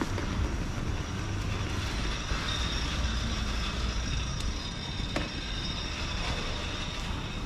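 Street traffic: a motor vehicle's engine rumbling close by, heaviest in the first half, with a faint high whine over it and two short clicks about four and five seconds in.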